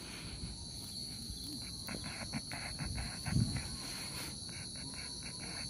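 Steady, high-pitched drone of insects, with a run of short clicks about two to three seconds in and a low thump at about three and a half seconds.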